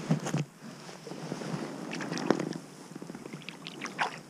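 Creek water splashing and sloshing close by while a hooked brown trout is brought in to hand, with a few light clicks and knocks near the end.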